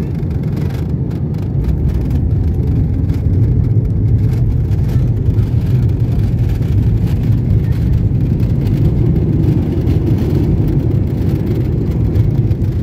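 Cabin noise of an airliner on its landing rollout: a loud, steady low rumble of the engines and the wheels on the runway, swelling a second or two in and then holding, while the ground spoilers are up to slow the aircraft.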